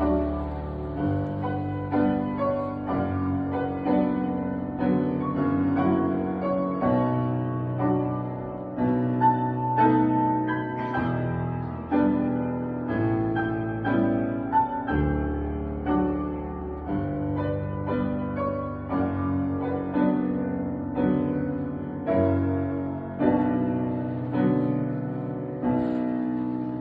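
Piano playing a flowing piece: a steady run of notes over low bass notes each held for a few seconds.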